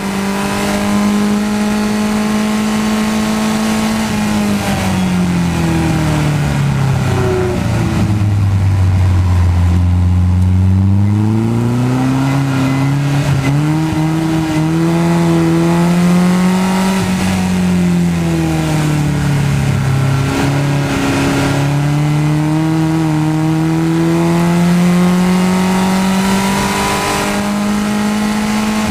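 Onboard sound of a Ma7da clubman race car's Mazda MX-5 four-cylinder engine at racing speed. The revs hold high, fall away over a few seconds to a low, then climb again as the car accelerates. Two short dips in pitch come in the second half, and after them the revs rise steadily to the end.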